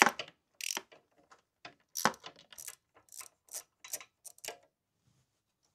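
Ratchet wrench clicking in a run of short, irregular strokes as a rusted exhaust header nut is turned out. The clicks stop near the end.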